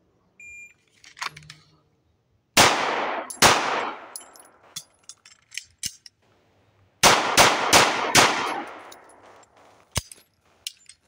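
A shot-timer beep, then an HK P2000 9mm pistol fires two shots about a second apart. A few seconds of clicks and clatter follow as the magazine is changed, then four more shots about 0.4 s apart, each with a ringing echo.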